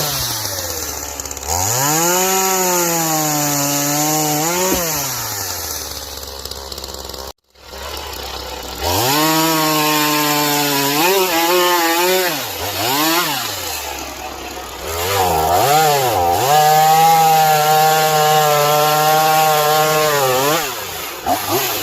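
Ryobi 37 cc two-stroke gas chainsaw revving up and down while cutting through logs, then holding high revs through a long cut before dropping back toward idle near the end. The sound cuts out briefly about seven seconds in.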